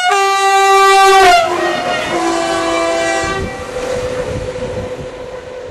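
Train horn sounding a loud multi-tone chord as the train passes, its pitch dropping partway through, held for about three seconds. The rumble of the passing train follows and fades.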